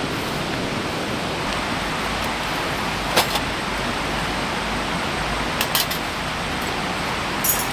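A stream running steadily, with a few sharp light clicks over it: one about three seconds in, two close together a little before six seconds, and one near the end.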